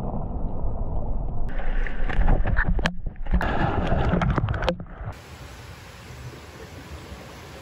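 Muffled rushing of water heard underwater through the camera, then about a second and a half in, loud splashing and crackling as a swimmer breaks the surface and moves through shallow sea water. About five seconds in it gives way suddenly to a quieter, steady background hiss.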